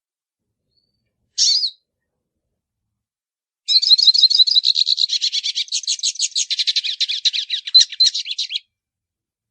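Hooded siskin (pintassilgo) of the 'baianinho' song type singing: a short call about a second in, then about five seconds of fast, warbling twitter.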